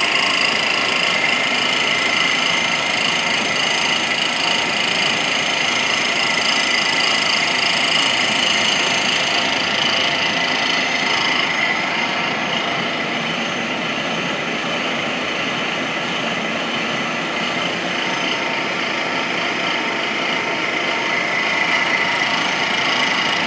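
Cylindrical grinding machine running, its grinding wheel working a part with a steady high-pitched whine over a hiss of grinding noise.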